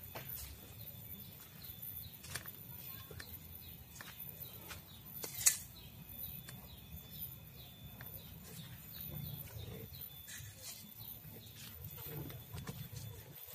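Outdoor rural ambience: scattered bird chirps over a steady low rumble, with one sharper, louder high chirp about five and a half seconds in.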